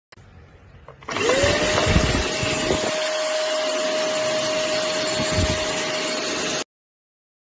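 Keromee 2-in-1 handheld cordless vacuum cleaner switched on: the motor's whine rises quickly to a steady pitch about a second in and runs evenly with a rushing air noise, with a couple of low bumps, then stops abruptly near the end.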